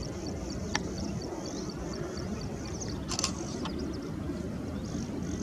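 Steady low rumble of a twin-engine Boeing 777 airliner taxiing at low power, heard across the airfield, with faint high chirping over it. Two short sharp clicks, one about a second in and one about three seconds in.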